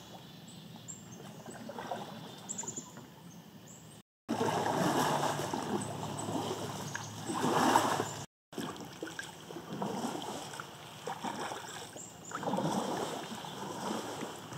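Kayak paddle strokes dipping and splashing in the water, each stroke a swell of water noise about every two and a half seconds, quieter in the first few seconds. The sound drops out to silence twice, briefly, near four and eight seconds in.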